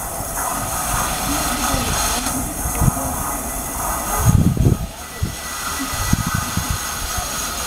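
Train running slowly: a steady rumble and hiss, with a few heavy low thuds about four and a half seconds in.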